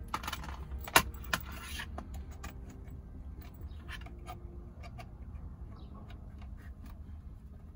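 Clicks and small rattles of a USB-Link diagnostic adapter's cable and plastic connectors being unwound and handled, with one sharp click about a second in, over a steady low rumble.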